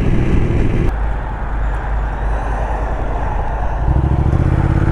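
Motorcycle engine running on the road, with wind and road noise. The engine note falls away about a second in and comes back stronger near the end.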